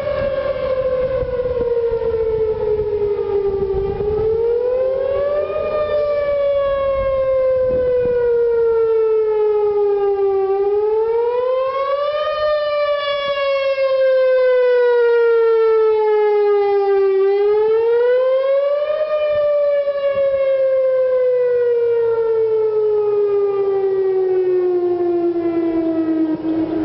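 Whelen 4008 electronic tornado siren sounding its Wail tone, a loud pitched howl with many overtones. It rises quickly and falls slowly, three rises about six and a half seconds apart, and the last fall sinks lower near the end.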